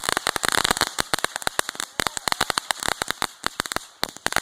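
Consumer fireworks crackling: a dense, irregular run of rapid sharp pops, many each second, thinning out a little near the end.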